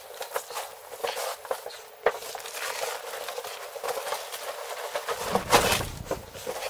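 Pasteurised oaten straw rustling and crunching in irregular handfuls as it is tossed and mixed by hand with grain spawn on a plastic tarp, with the tarp crinkling. A louder, fuller rush of handling noise about five and a half seconds in.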